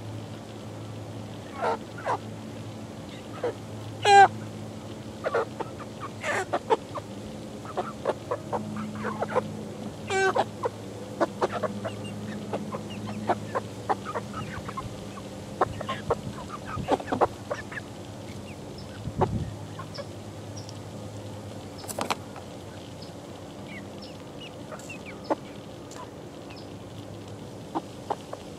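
A flock of 11-week-old chickens calling: many short clucks and cheeps from several birds at once, busiest in the first half and thinning out later. A low steady hum runs under the first half, and there is a single sharp tap a little past the middle.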